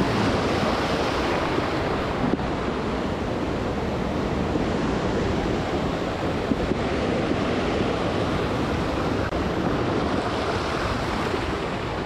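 Swollen mountain stream rushing over rocks: a steady wash of white water, running high after heavy rain.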